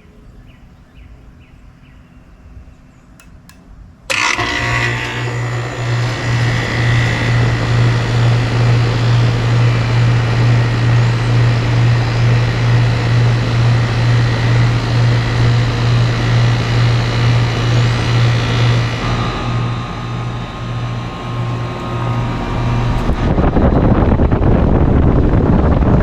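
A 2008 Goodman GSC13 air conditioner condensing unit starts suddenly about four seconds in. Its compressor and condenser fan then run with a strong, steadily pulsing low hum, and the compressor sounds angry and not happy at all. Near the end a louder rushing noise joins in.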